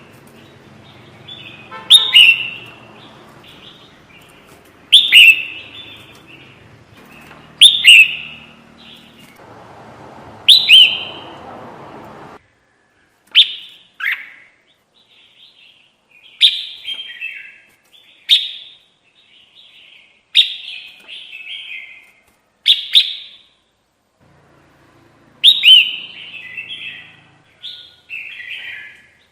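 Crested bulbul (kutilang jambul) singing a lure song: loud phrases every two to three seconds, each a sharp note sliding down in pitch followed by a short bubbly warble.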